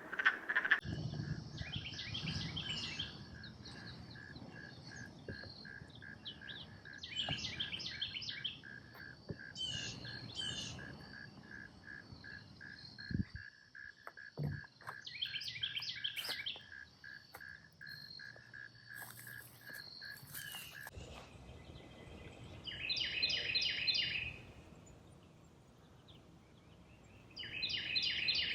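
Lakeside forest wildlife: a steady, evenly pulsed call repeating until about three quarters of the way through, with short bursts of rapid bird chirps about six times.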